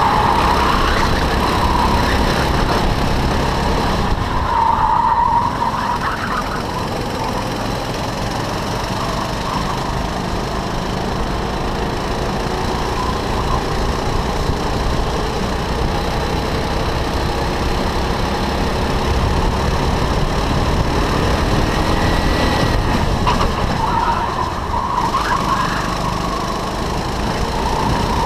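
Racing kart engine heard from on board, its pitch rising and falling as the driver brakes and accelerates through the corners, with steady wind noise. A few brief higher squeals, about five seconds in and again near the end, fit tyres scrubbing in the corners.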